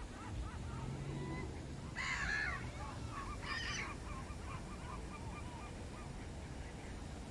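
Gulls calling: a run of short repeated calls, with two loud, harsh squawks about two seconds and three and a half seconds in.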